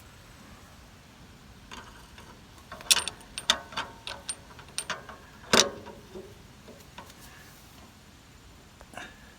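Steel parts clinking and knocking irregularly as a steering-cylinder pin and washer are worked into place: a cluster of sharp metal clicks over a few seconds, with the heaviest knock about five and a half seconds in.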